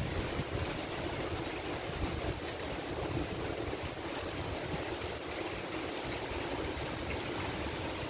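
Damaging thunderstorm winds rushing steadily through trees, with gusts buffeting the microphone.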